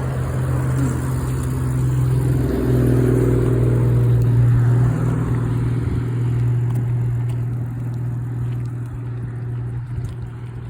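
Road traffic on the highway beside the path: a motor vehicle's engine passing, swelling to its loudest about three to five seconds in and then fading away.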